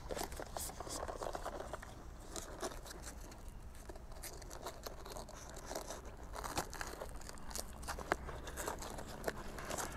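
Hook-and-loop (Velcro) straps of a bicycle phone holder bag being pulled and pressed shut, with scattered short rips and the rustle and taps of the bag being handled.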